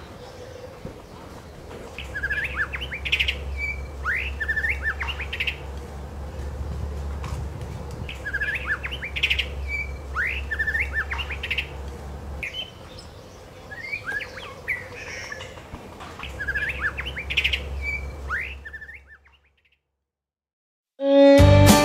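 White-rumped shama singing: short whistled notes and trills in phrases repeated every few seconds, over a faint low hum. The song fades out about 19 seconds in, and after a brief silence guitar music starts near the end.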